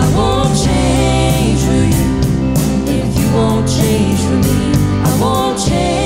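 Band music with a steady drum beat and guitar.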